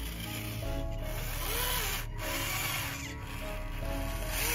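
Background music over the whine of a small electric gear motor, the drive of a homemade remote-control tractor model. The whine rises and falls in pitch a couple of times.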